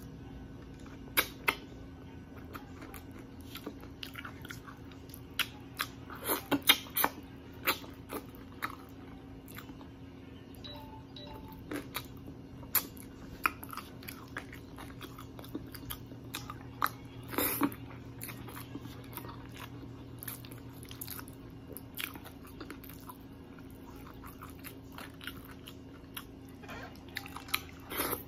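Close-miked eating of fried tilapia and rice by hand: chewing and biting, with scattered sharp mouth clicks and crunches.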